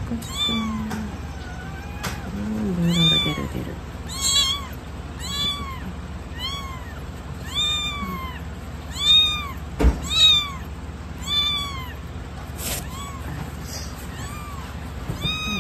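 Young white kitten crying in a steady series of short meows, about one a second, each rising and falling in pitch. It is being stimulated to urinate with a tissue.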